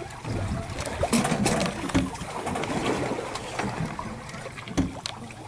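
Small boat at sea: water slapping at the hull under a steady wash, with scattered sharp clicks and knocks from a heavy conventional fishing reel being cranked against a fish. A few short low hoots are mixed in.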